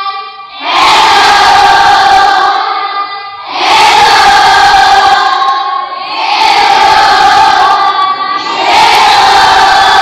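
A class of students shouting together in unison, four loud group calls in a row, each about two seconds long.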